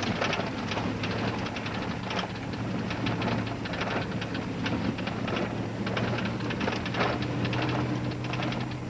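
Pickup truck engine running steadily under a constant rattle and clatter, heard from inside the cab as the truck, fitted with snow chains, bounces up a rough road. A second steady tone joins the engine hum about seven seconds in.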